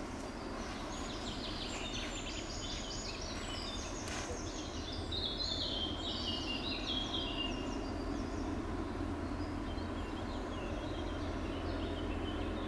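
Outdoor ambience: several birds singing in short, repeated chirping phrases over a steady low rumble that gets a little stronger about halfway through.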